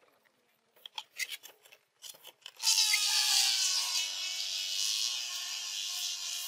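Several long rocket balloons released together, buzzing and squealing loudly as air rushes out of their nozzles. The sound starts about two and a half seconds in, lasts about four seconds, and its pitch sinks as they empty. Before that come a few short squeaks of the rubber balloons being handled.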